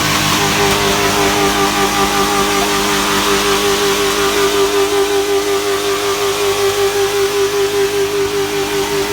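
Chevrolet Silverado's 5.3 Vortec V8 running hard at a steady high rpm, held there with a slight waver in pitch.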